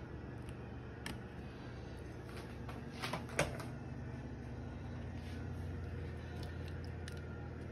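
Quiet kitchen handling noises: raw shrimp being handled in a plastic bowl, with scattered light clicks and one sharper knock about three and a half seconds in, over a steady low hum.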